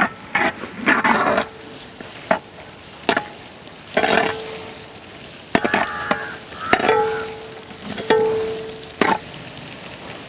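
Shallots and dried red chillies sizzling in sesame oil in a metal uruli, stirred with a ladle that scrapes and knocks against the pot about a dozen times. Several of the strokes set the pot ringing briefly with a clear tone.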